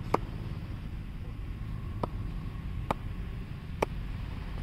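Cricket ball bounced on the face of an SS Jaddu RJ8 cricket bat in a ping test: four sharp knocks, each with a short ringing ping, the first near the start and the rest about a second apart, over a steady low background rumble. The ping is taken as the sign of a good, powerful bat.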